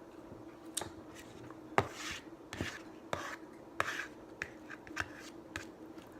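Irregular clinks and short scrapes of a utensil against dishware, about a dozen in all, the loudest a sharp click about two seconds in.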